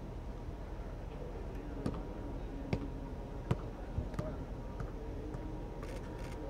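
Four short, sharp knocks spread over about two seconds, above a steady low background hum, with faint distant voices.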